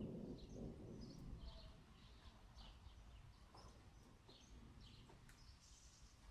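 Faint, repeated short bird chirps, roughly two a second, over the low rumble of distant thunder dying away in the first second or so.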